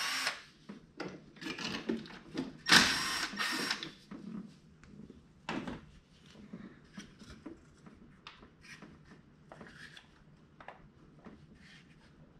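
Cordless electric ratchet running in two short bursts of about a second each, spinning out the lifter tray bolts on an LS V8 engine. After them come light metallic clicks and knocks of bolts and parts being handled.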